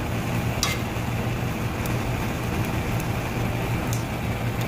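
Steady rushing of a commercial gas range burner's open flame, over a constant low hum, with a few light clicks.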